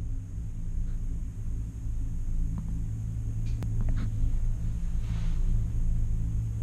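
Steady low rumble and hum of a gondola cabin riding along its cable, heard from inside the cabin, with a few light clicks and rattles around the middle.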